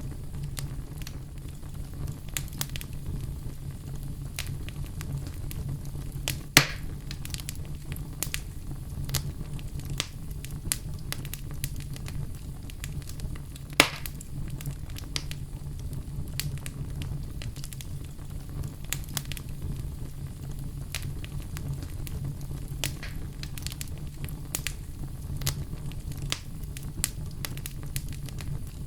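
Wood fire crackling in a fireplace: a steady low rumble with scattered sharp crackles, and two louder pops about a third and halfway through.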